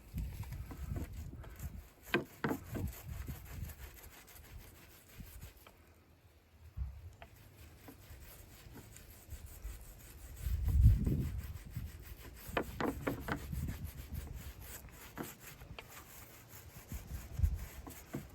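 Irregular rubbing and scraping with scattered light knocks, the loudest bout about eleven seconds in.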